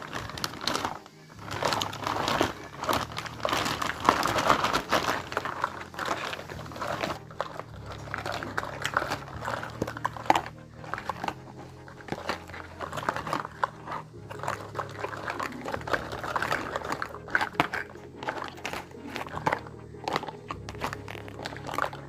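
Plastic packaging crinkling and rustling in dense, irregular crackles as a toy kitchen set is unboxed by hand.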